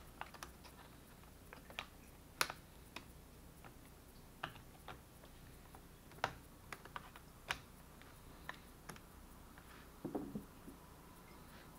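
Irregular light clicks and taps of small screws and a small screwdriver handled against a laptop's plastic case as it is screwed back together, with a short cluster of knocks about ten seconds in.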